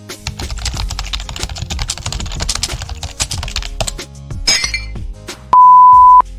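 Editing sound effects over background music: a dense run of rapid clicks like computer-keyboard typing for about four seconds, a short hiss about four and a half seconds in, then a loud, steady, single-pitch bleep for under a second near the end.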